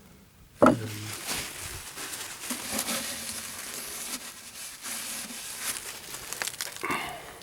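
Handling noises while working on a dismantled refrigeration compressor: rustling and scattered small clicks and knocks of parts being moved, with a brief squeak near the end.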